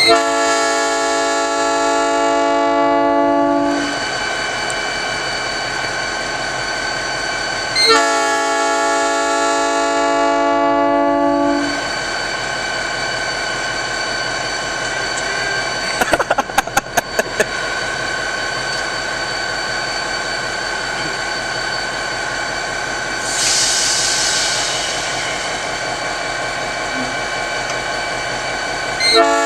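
Nathan P5 five-chime air horn on a freight locomotive sounding long chord blasts of about four seconds each: one at the start, one about eight seconds in, and a third beginning right at the end. Between the blasts the locomotive runs steadily, with a quick string of sharp clanks around the middle and a short hiss later.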